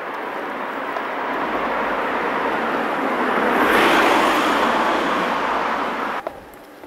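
A car driving past along the street: its engine and tyre noise swells to a peak about four seconds in, eases off, then drops away suddenly a little after six seconds.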